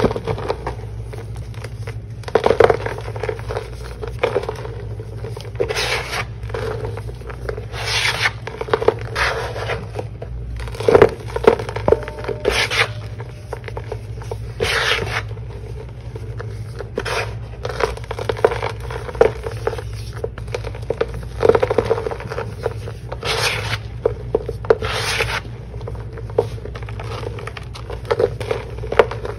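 Hand crushing and raking through compacted chunks of blue Ajax and Tydbol cleaning powder: repeated dry, gritty crunches and scrapes as the slabs crumble between the fingers, coming irregularly every second or two.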